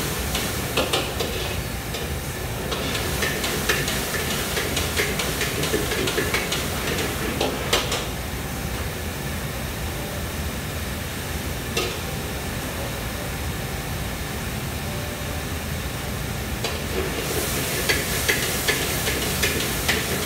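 Stir-frying in a wok over a high gas flame: food sizzling while a metal ladle clanks and scrapes against the wok many times, over a steady low rush. The clanking comes thick over the first several seconds, thins out in the middle, and picks up again near the end.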